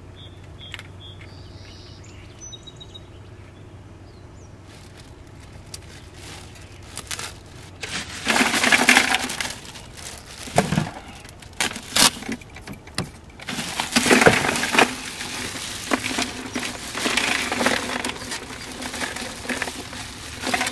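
Bagged ice cubes poured into an aluminium-lined AMF military cooler, clattering and crunching against the metal liner in several loud bursts from about eight seconds in, with the plastic ice bag rustling.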